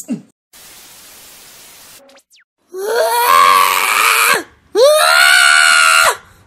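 Loud screams: two long held cries, each sharply rising at the start and lasting about a second and a half, with a third beginning at the end. Before them there is a faint hiss.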